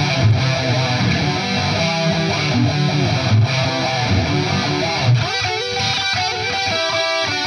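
Distorted electric guitar played through an amp, with an Electro-Harmonix Intelligent Harmony Machine in the amp's effects loop after the distortion, adding pitch-shifted harmony notes to the played line. The playing changes about five seconds in.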